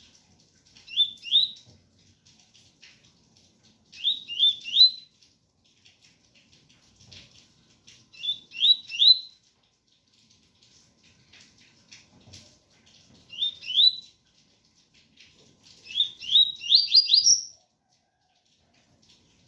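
Double-collared seedeater (coleiro) singing in short phrases of two to four quick rising whistled 'tui' notes, repeated every few seconds with pauses between. The last phrase is longer, with five notes climbing higher.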